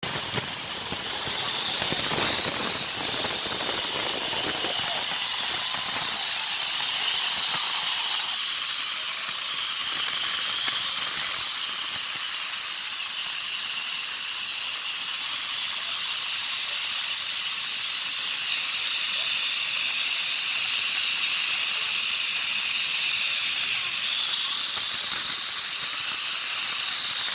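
Steady, loud, high-pitched hiss, with some lower rushing noise under it during the first several seconds.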